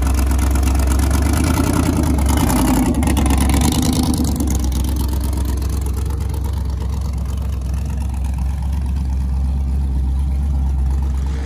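LSX V8 in a square-body GMC no-prep drag pickup idling with a choppy, uneven beat.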